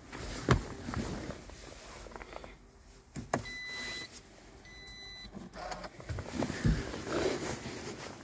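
2013 Toyota RAV4 EV being switched off: a click, then two short electronic beeps from the car about a second apart, followed by rustling and knocks as the driver climbs out.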